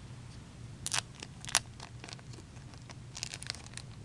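Plastic card packaging crinkling and rustling in short bursts as trading cards are handled and unwrapped. The two loudest rustles come about a second and a second and a half in, then a run of quicker ones near the end.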